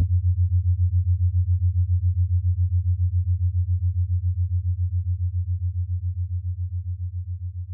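A low, pulsing bass drone left from the outro music after its higher notes stop, throbbing about six times a second and fading gradually.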